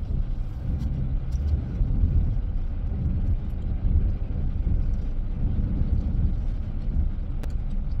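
Steady low road and engine rumble inside a moving car's cabin, with a few faint clicks.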